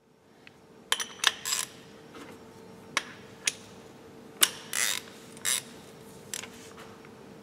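Metal tools clinking and knocking in a workshop, with several sharp clinks and a few short scraping sounds, over a faint steady hum.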